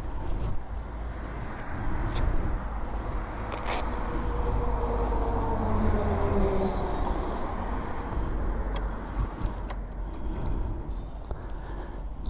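Motor-vehicle engine rumble with road noise, and an engine tone that falls slowly in pitch between about four and seven seconds in.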